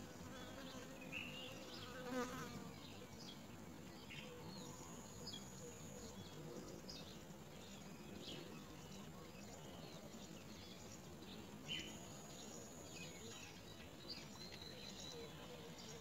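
A flying insect buzzing, loudest as it passes close about two seconds in. Underneath are faint, scattered short high chirps from begging myna nestlings.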